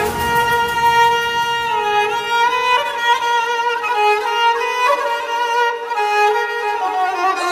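Background music: a melody of long, sliding bowed-string notes, like a violin, with no drums or bass.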